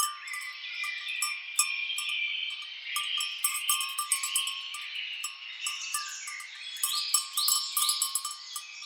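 Bells on grazing cattle clanking irregularly, with birds calling over them.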